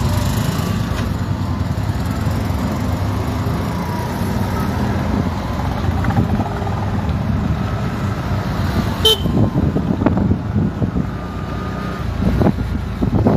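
Street traffic: vehicle engines and road rumble, with short car-horn toots. There is one sharp click about two-thirds of the way through.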